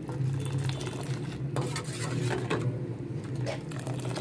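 A metal ladle stirring and scooping milk in a steel pan, knocking against the pan a few times, over a steady low hum.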